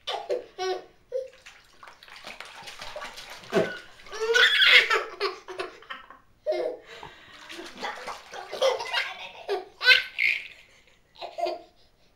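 Baby laughing and squealing in repeated bursts with short pauses, while bathwater sloshes and splashes in a plastic Tummy Tub bucket bath as an adult's hands move the water.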